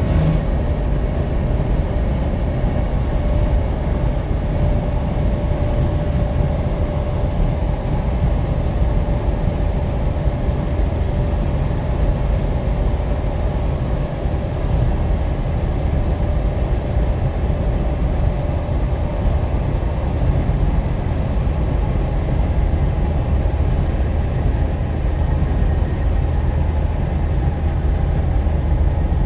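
Steady highway driving noise from a moving car, tyres and wind, as a Peterbilt semi-truck drives alongside in the next lane. The drone stays even throughout.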